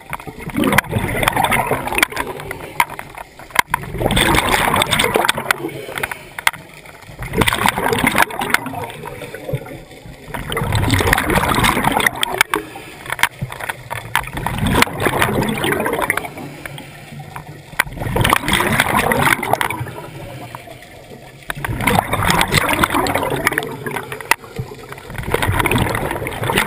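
Scuba diver breathing through a regulator underwater: a burst of exhaled bubbles every three to four seconds, with quieter gaps between breaths.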